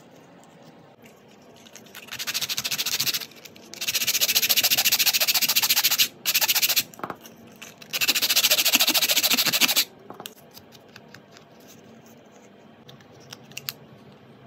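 Sanding block rubbed rapidly back and forth along the edge of a small glued panel of wooden craft sticks, in four bursts with short breaks, stopping about ten seconds in. Afterwards come a few faint clicks of the wooden sticks being handled and set in place.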